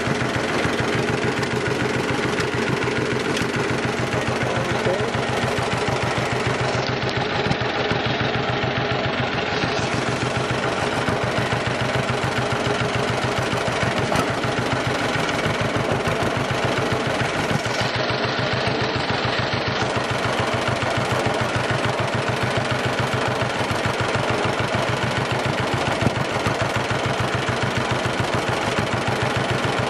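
1949 John Deere BW tractor's two-cylinder engine running steadily under way, with a rapid, continuous firing beat.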